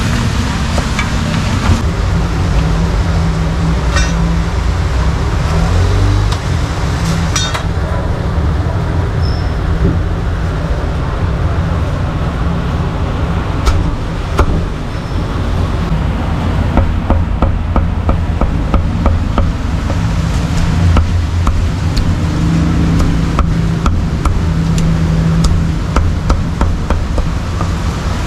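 Cleaver chopping cooked meat on a thick wooden chopping block: sharp knocks, scattered at first and coming in quick runs over the last several seconds, over a steady rumble of street traffic.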